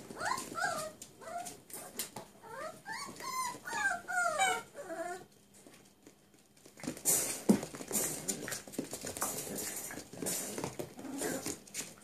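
Cirneco dell'Etna puppies whining and yipping in a run of high, sliding cries over the first five seconds. After a short lull comes a busy patter of claws clicking and scrabbling on a tiled floor as they play.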